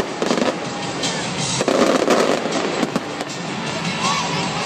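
Aerial fireworks crackling and popping in a dense, continuous barrage, with a short rising whistle about four seconds in.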